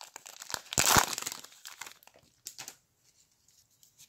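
Plastic wrapper of an NBA Hoops basketball card pack crinkling and tearing as it is ripped open. It is loudest about a second in, with a few softer crinkles after that, then dies away.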